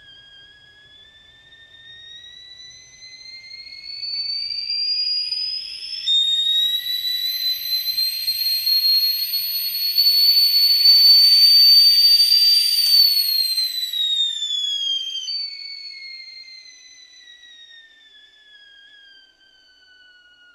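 Stovetop kettle whistling at the boil. The whistle climbs steadily in pitch and loudness, and about six seconds in it jumps to a louder, shriller tone with a rush of steam noise under it. From about thirteen seconds it glides down in pitch, drops back to the softer tone and fades.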